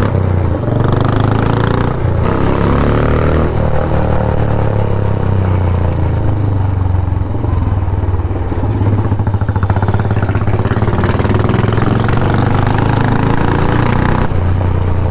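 Sport motorcycle engine running while riding, loud and steady, with its pitch rising and falling a little.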